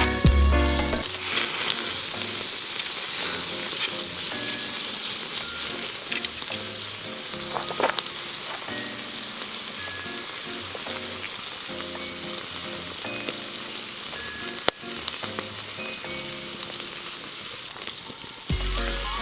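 Thick beef steak sizzling loudly on a hot cast-iron grill plate, a dense, steady frying hiss that starts about a second in and stops shortly before the end. A single sharp click comes through it near the end.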